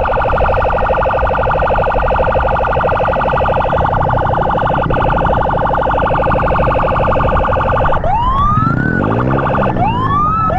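Electronic emergency siren wailing in a fast pulsing warble for about eight seconds. Near the end it switches to short rising whoops, three in quick succession, over steady low wind and engine noise from the moving motorcycle.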